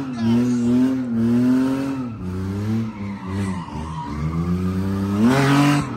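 Car engine held at high revs while the tires spin and screech through donuts. The engine note sags and climbs several times, rising to its loudest a little before the end and then dropping.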